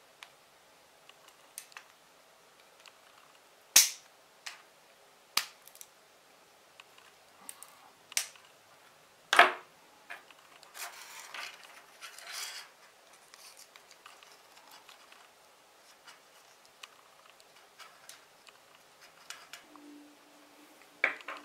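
Sharp clicks and snaps of pliers and small plastic and metal parts being handled while the pieces of a homemade soldering iron are fitted together: four loud snaps spread over the first ten seconds among lighter ticks, then a few seconds of scraping and rustling.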